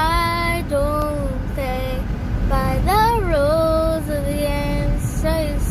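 A young girl singing unaccompanied, holding long notes that slide up and down in pitch with short breaks between them, over a steady low rumble.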